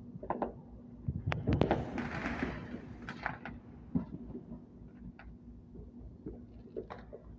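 Scattered bangs and pops of fireworks. The loudest cluster comes about one and a half seconds in, followed by a short hiss, with further sharp cracks around three and four seconds and single pops near the end, over a faint steady hum.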